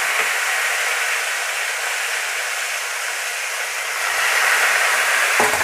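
Slices of marinated milkfish (bangus) steak sizzling steadily as they fry in hot cooking oil in a wok.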